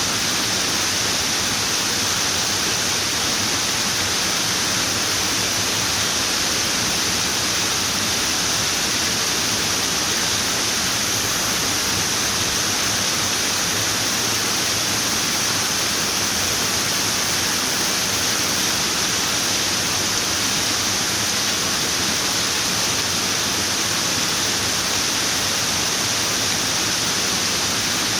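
Running water pouring in a steady, even rush with a bright hiss.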